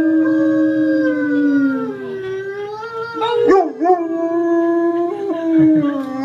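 A German Shepherd howling in long drawn-out notes, the pitch sliding slowly downward, with a wavering break in the voice about halfway through.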